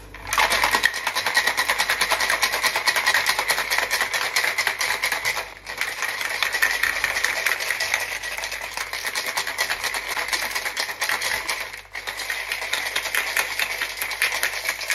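Ice cubes rattling fast inside a cocktail shaker shaken hard with espresso, chilling and frothing the coffee for a shaken espresso. The shaking runs in three long spells, with brief pauses about five and a half and twelve seconds in.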